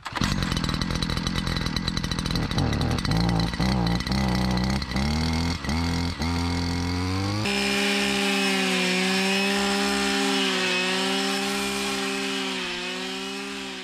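Stihl petrol brush cutter running while clearing brambles. Its engine pitch wavers and dips as it is revved, then jumps to high, steady revs with a slight wobble about seven and a half seconds in, and fades out near the end.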